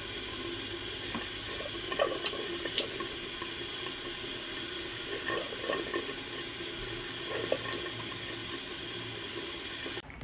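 Steady running water, with a few faint small knocks or splashes in it; it stops abruptly near the end.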